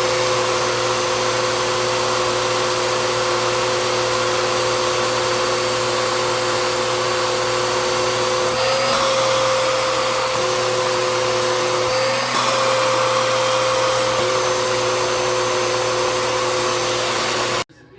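Bissell CleanView upright bagless vacuum cleaner running steadily, a motor whine over a steady rush of air, its pitch wavering slightly twice; it cuts off suddenly near the end.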